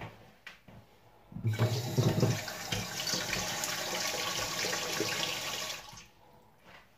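Water running from a kitchen tap into a container. It starts about a second and a half in with a heavy splash, settles into a steady rush, and is shut off near the end.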